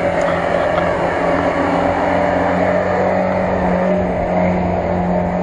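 Lada Niva's engine running under load on an uphill climb, its pitch holding fairly steady.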